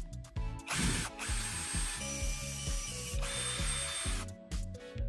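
Cordless drill running, its bit boring a hole through a thin copper-coloured strip held on a wooden board. It starts just under a second in and cuts off abruptly near the end, over background music with a steady beat.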